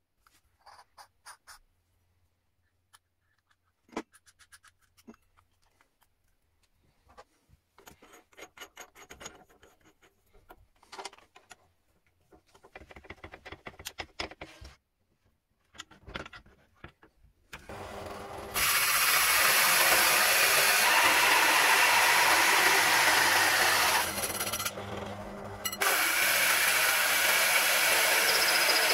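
Bench drill press driving a bi-metal hole saw into wood: a loud, steady cutting noise that starts about two-thirds of the way in, eases off for a couple of seconds and then resumes. Before it, only faint scattered clicks and knocks.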